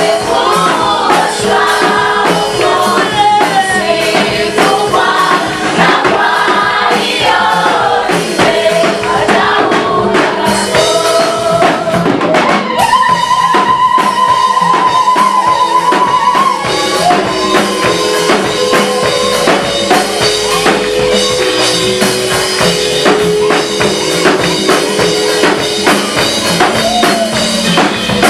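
Choir singing a gospel song over a steady beat of drums and percussion, with a long held high note about halfway through.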